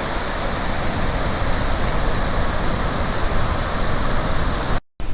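Steady rushing of the Khone Phapheng falls on the Mekong, white water pouring over rock, with a low rumble under it; it breaks off abruptly near the end.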